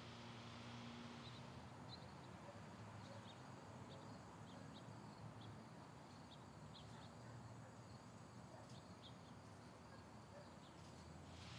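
Near silence: faint steady hum and hiss, with short, faint high chirps scattered through it from about a second in until near the end.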